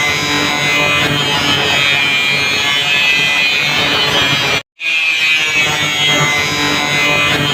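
Electric angle grinder running while cutting or grinding: a steady high whine over a harsh grinding rasp. It cuts out for a split second a little past halfway, then carries on.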